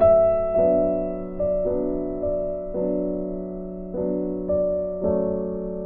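Background piano music: a melody with notes struck about twice a second, each fading away.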